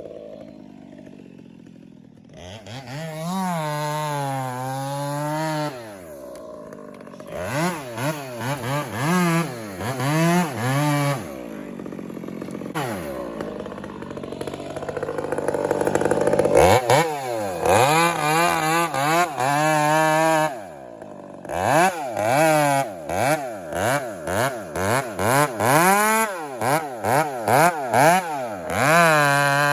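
Chainsaw running and being revved up and down over and over, with quick throttle blips in short runs and a steadier stretch at lower pitch around the middle.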